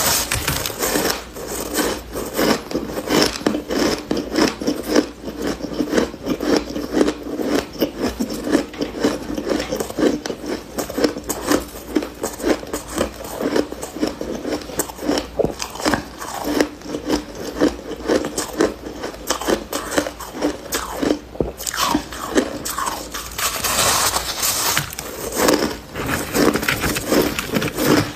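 Close-up crunching of a soft chunk of freezer frost being bitten and chewed: a dense, continuous run of rapid crunches.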